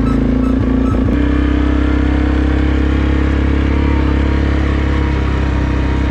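ATV (quad) engine running steadily under way, with a couple of short knocks about a second in.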